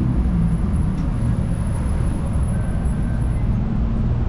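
Street traffic: a steady low rumble of motor vehicles running close by.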